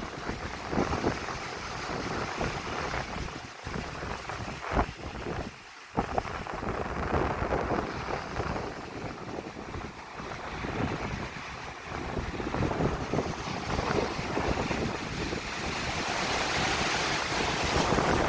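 Strong wind gusting and buffeting the microphone over waves breaking on a beach. The wash swells louder near the end.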